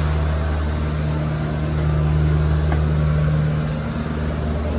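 Steady machine hum: a low drone with a higher steady tone above it that swells a little through the middle, with no pig calls standing out.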